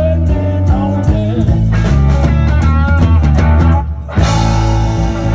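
Live rock band with electric guitars, bass and drums: a guitar lead with bent, sliding notes over a steady bass line. About four seconds in the band drops out briefly, then comes back in on a loud held chord with a bright wash of cymbals.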